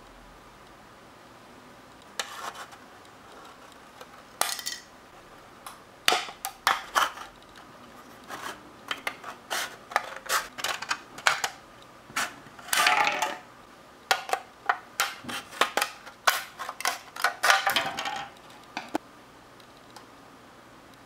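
Scissors cutting through a thin plastic candy-kit tray, the plastic clicking and clattering as it is handled: quick runs of sharp snips and clicks with short pauses between them, dying away near the end.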